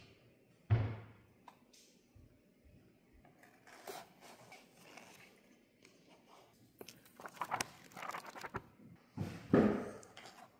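A notebook being handled and laid down on a wooden floor: a sharp thud about a second in, scattered light clicks and rustles, and a louder thump near the end.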